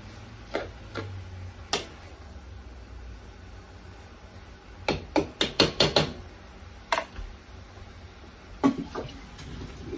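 A utensil knocking and clacking against a large frying pan as cabbage is stirred and turned: a few separate knocks, then a quick run of about six, then two more. A steady low hum runs underneath.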